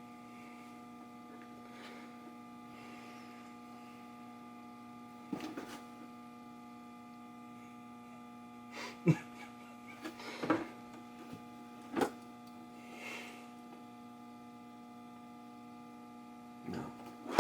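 Steady electrical mains hum, with a handful of sharp clicks and knocks from handling wires and small parts.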